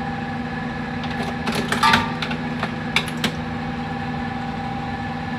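Steady workshop machine hum holding several fixed tones, with a few sharp clicks and rattles of handling about one and a half to two seconds in and twice more around three seconds in.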